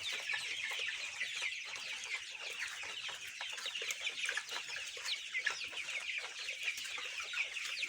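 A large flock of about a thousand 30-day-old colour bird chickens, a coloured broiler breed, peeping and clucking together. The many short, high calls overlap into a steady chorus.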